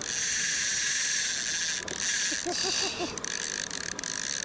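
Level-wind trolling reel's drag whining steadily as a hooked salmon runs and strips line off the spool, in long pulls broken briefly about two and three seconds in.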